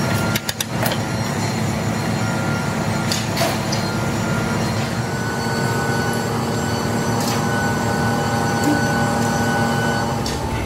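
A steady drone with several held tones underneath, and a few sharp taps and knocks from hand tools as molding sand is packed and smoothed around a gear pattern in a casting flask, a cluster of them about half a second in.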